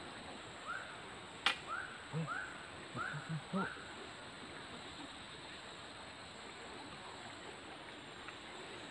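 Steady rush of a fast-flowing, swollen muddy river. Between about one and four seconds in, a quick series of five short calls from an animal rises over it, and a single sharp click comes about a second and a half in.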